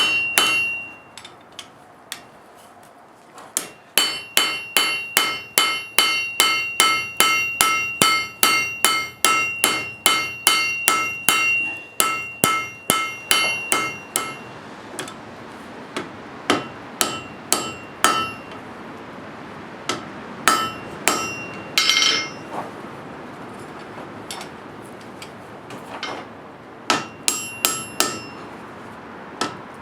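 Forging hammer striking hot steel on an anvil, each blow ringing. A steady run of about two to three blows a second gives way to scattered strikes and a short pause, and the hammering starts again near the end.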